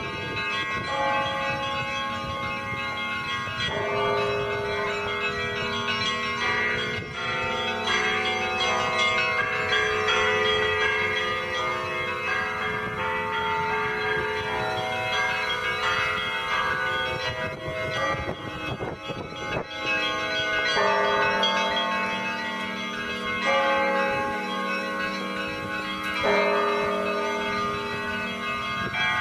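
Russian Orthodox monastery bells ringing in a continuous peal, several bells of different pitch struck together so their ringing tones overlap, with the pattern of pitches shifting every few seconds as new bells are struck.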